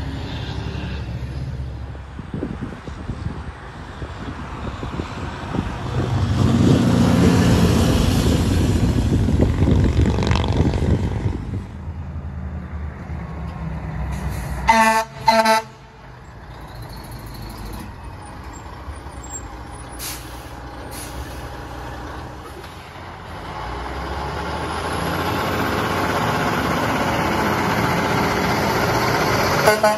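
Heavy diesel trucks passing along a street, with engine and tyre noise swelling as each goes by. There are two short horn blasts about halfway through and another near the end.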